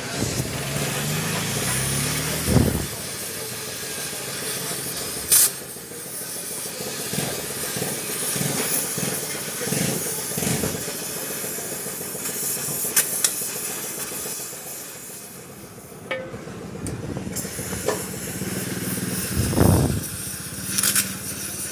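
Gas torch flame hissing steadily as it heats an aluminium alloy wheel rim and melts aluminium filler rod onto a damaged spot, with a few sharp knocks in between.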